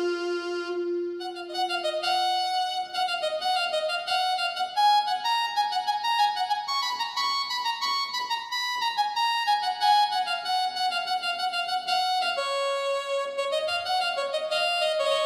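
Yamaha DX7 FM synthesizer playing a melody of held notes in a single line, one long note at the start and then moving up and down in pitch.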